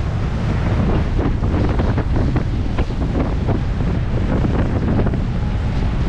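Rushing whitewater of a river rapid in flood around a raft, with wind buffeting the microphone. Steady and loud, with many small splashes through it.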